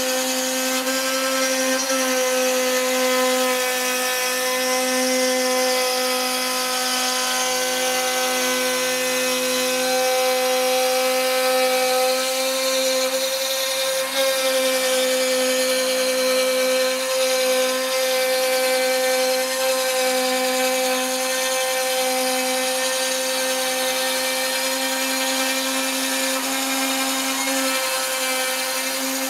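Cybermation Autograph Multicutter 8000 CNC router running, with a steady whine made of several tones held at one pitch. There is a brief dip in level about halfway through.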